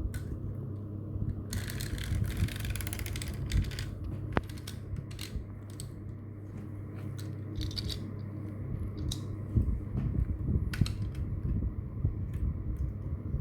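Toys being handled: scattered clicks and knocks, with a longer rattling stretch near the start, over a steady low hum.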